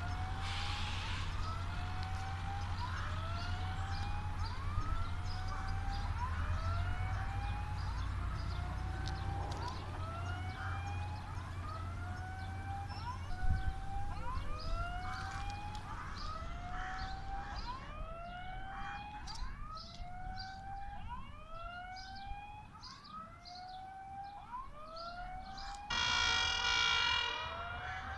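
A siren-like whooping tone repeats about once a second, each whoop rising in pitch and then levelling off. A low rumble runs under it for roughly the first half. Near the end a short, louder, steady horn-like blast sounds.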